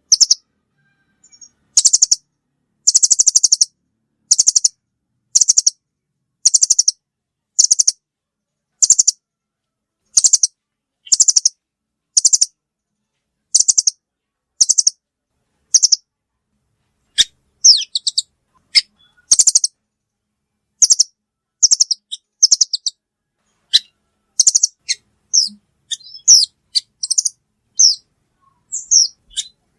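Velvet-fronted nuthatch calls: a run of short, high, rapidly trilled chirps about once a second. From a little past halfway they give way to quicker, sharper and more varied notes.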